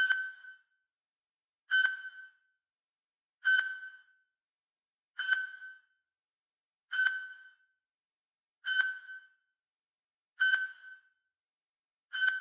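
Countdown timer sound effect: a short, high, pitched ding that dies away quickly, repeating evenly about every second and three-quarters.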